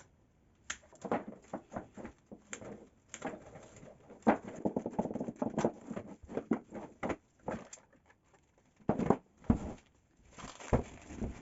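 Hand tools and metal parts being handled while a scroll vacuum pump's wiring is disconnected and its backplate removed: irregular clicks, taps and scraping, with a few louder knocks near the end.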